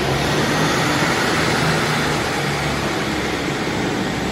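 Class 150 diesel multiple unit rolling slowly past into the platform: its underfloor diesel engine running over a steady noise of wheels on rail.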